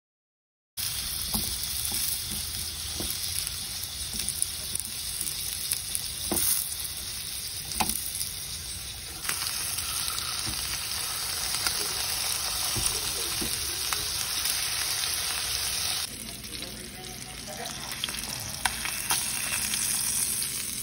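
Chicken tenders sizzling in hot oil in a nonstick frying pan, a steady hiss that starts just under a second in, with occasional sharp clicks. The sizzle drops to a lower level about two thirds of the way through.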